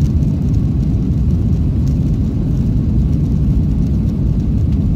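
Cabin noise of a Boeing 737-900ER on its takeoff roll, heard from inside the cabin: the CFM56-7B turbofan engines at takeoff power together with runway noise, a loud, steady low rumble.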